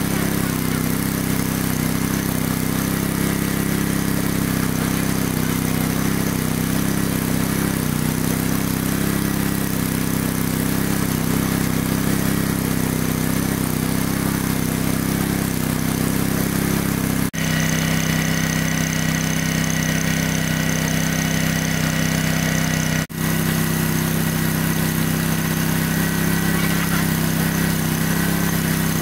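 Engine of a large water pump running steadily at a constant speed, pumping water out of a lake. The sound drops out for an instant twice, about two-thirds of the way through and again later, and comes back with a slightly changed tone each time.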